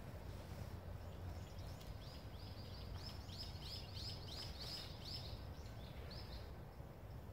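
A small bird calling a run of short, repeated high notes, about three a second, starting about two seconds in and stopping near the end, over a faint steady outdoor rumble.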